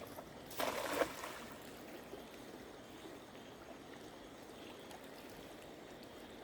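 A short splash of water about half a second in, followed by faint, steady trickling water.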